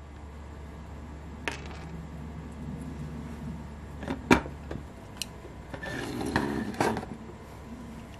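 Small parts and tools handled on a wooden table: a few sharp clicks and taps, the loudest about four seconds in, and a short rustling, scraping stretch around six to seven seconds, over a steady low hum.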